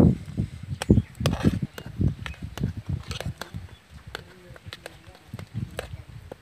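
Metal ladle stirring thick cooked rice in a pot, with irregular clicks and knocks against the pot's rim and sides and soft squelching thuds.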